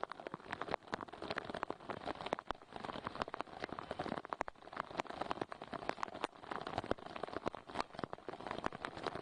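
Rain falling, with a dense, uneven patter of sharp drop hits.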